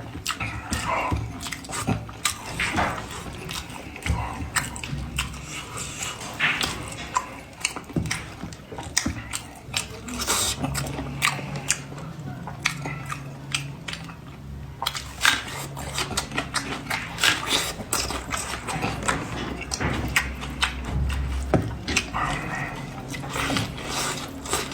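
A person chewing and biting spiced sheep's head meat up close, with irregular wet smacks and clicks of eating.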